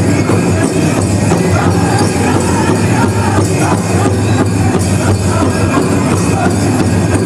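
Powwow drum group singing a Lakota dance song over a steady, loud drumbeat on a large shared drum.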